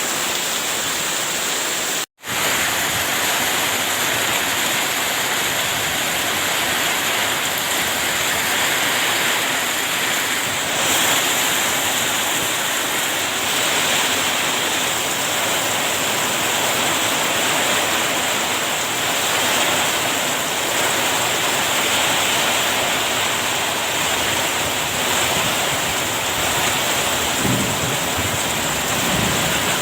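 Heavy rain pouring down in strong wind, a steady rushing downpour. It cuts out for a split second about two seconds in, then carries on.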